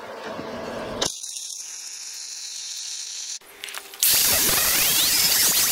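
Welding on a steel frame: a high crackling hiss for a couple of seconds. About four seconds in, loud electronic music comes in.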